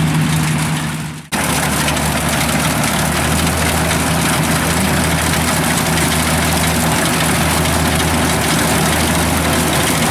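Kubota DC70 combine harvester's diesel engine and threshing gear running steadily under load while it cuts rice, a constant low hum. About a second in the sound briefly drops out and resumes.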